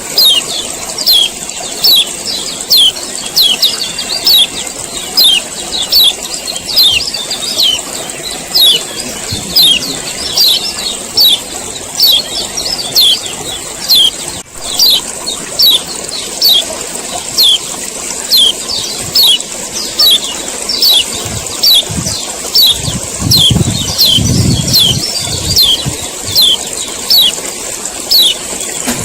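Male kecial kuning (a white-eye) repeating its 'ciak ciak' call: short, sharply falling high chips at about two a second, over a steady high hiss. A low rumble comes in during the last third.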